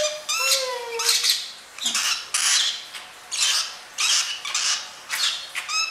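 Young lutino peach-faced lovebirds giving harsh, raspy squawks, about one to two calls a second.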